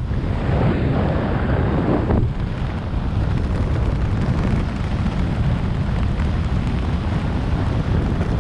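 Wind rushing over a skydiver's camera microphone in a steady, loud roar, with a brighter hiss layered on top that cuts off abruptly about two seconds in.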